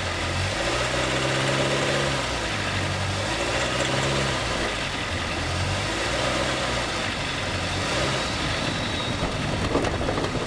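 Honda City 2020's 1.5-litre four-cylinder engine running, its low hum stepping up and down in pitch. It carries the abnormal engine noise that the owner reports; the dealer blamed it on the fuel.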